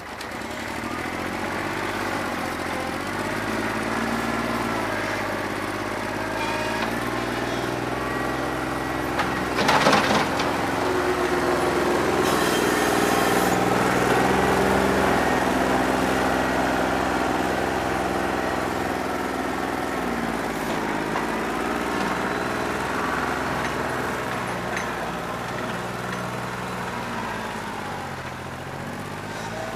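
New Holland 1320 compact tractor's three-cylinder diesel running with a bad injector, its engine speed rising and falling as if under working load. There is a sharp clatter about ten seconds in.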